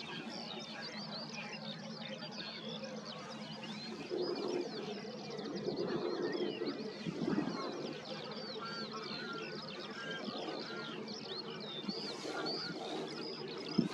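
Many small birds twittering and chirping at once: a dense run of short calls that never stops, over a low, steady background rumble.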